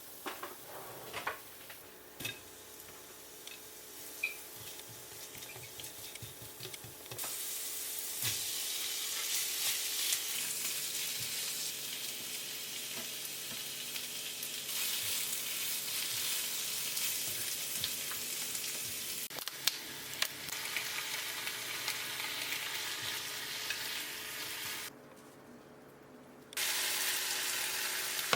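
Food sizzling in a hot frying pan as it is stirred, with a few light knocks of a utensil at first; the sizzle grows much louder about seven seconds in, breaks off briefly near the end, then resumes.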